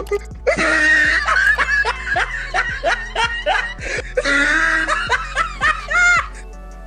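High-pitched laughter over steady background music: two long runs of quick, repeated laughs, the second ending about six seconds in.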